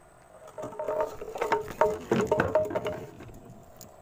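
A rapid, irregular flurry of knocks and clatter on a wooden boat, each knock ringing briefly, lasting about two seconds before it dies away.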